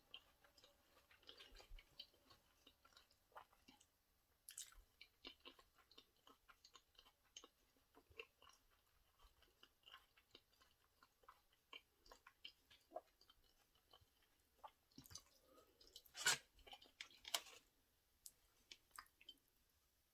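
Faint close-miked chewing of sushi: a steady scatter of small wet mouth clicks and smacks, with a louder cluster of smacks about three-quarters of the way through.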